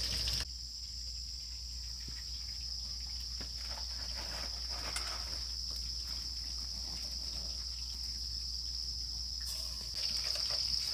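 Crickets calling in a steady, continuous high-pitched chorus. A fainter broad hiss underneath drops away about half a second in and returns about a second before the end.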